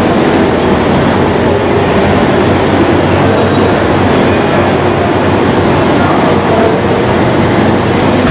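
Industrial laundry machinery running with a loud, steady hum and rumble.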